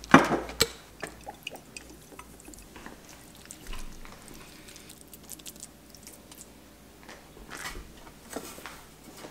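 A fork clicking and scraping against a mixing bowl in the first second, then soft wet squishing as a flaked fish-cake mixture of fish, flour, panko and egg white is shaped into a patty by hand, with a brief rustle of dry crumbs near the end as it is pressed into panko.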